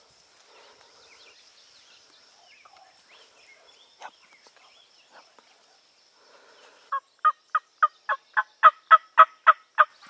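A series of about a dozen hen turkey yelps, evenly paced at roughly four a second, growing louder and then easing slightly. Before them, faint songbird chirps.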